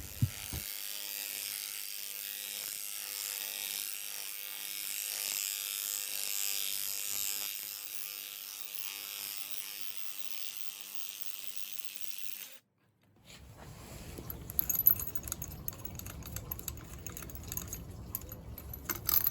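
A steady hiss for about twelve seconds, then after a brief cut, irregular metallic clinks and rattles of hand tools working on the rear anti-roll bar bush.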